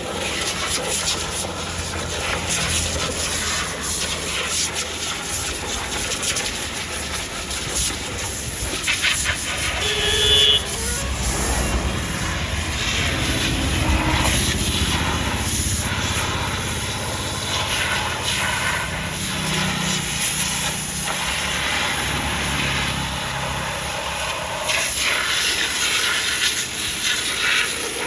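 An engine running steadily under a continuous hiss of spraying water, as when a backhoe is being washed. A short beep sounds about ten seconds in.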